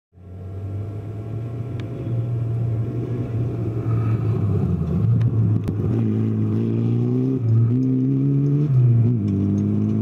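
Mitsubishi Galant VR4 rally car's turbocharged 2.0-litre four-cylinder engine. It first drones steadily, growing louder as the car approaches. In the second half it accelerates hard, its pitch climbing and dropping back at two upshifts.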